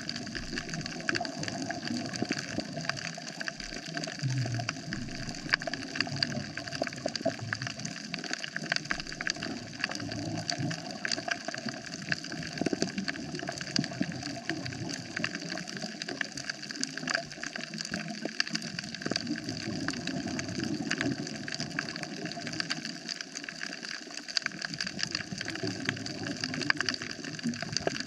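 Underwater coral reef soundscape: a dense, steady crackle of countless tiny clicks over a hiss of water.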